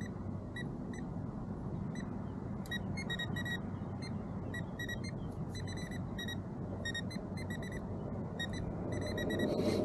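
Short high electronic beeps from the kayak's fishing electronics, coming singly and in quick runs of two or three at irregular intervals, over a steady low rumble of water and wind.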